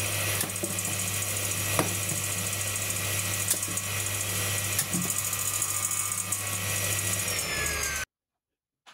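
Circular saw running with a steady motor hum and blade whine. A few sharp knocks come as red onions hit the spinning blade and are cut apart. The sound stops abruptly near the end.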